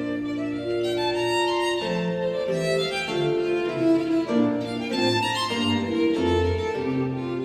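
Background instrumental music: slow, held notes in a melody over a separate bass line.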